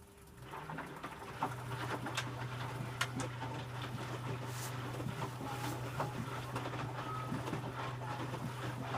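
Electrolux W455H commercial washing machine's drum motor starting up after a pause and turning the wash, building up over about a second into a steady low hum, with splashing and light knocks from the wash.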